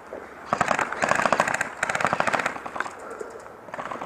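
Airsoft rifle firing on full auto in two rapid bursts, one straight after the other, as a fast string of sharp clicks.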